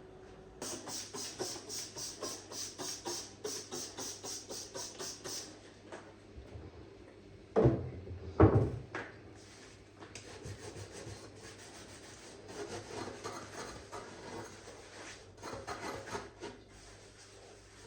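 Scrubbing of a bathroom surface: a run of brisk back-and-forth strokes, about four a second, then two loud knocks about two seconds later, then slower, softer rubbing.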